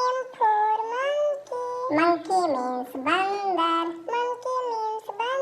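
A string of high-pitched, drawn-out vocal calls, each rising and falling in pitch, with short breaks between them.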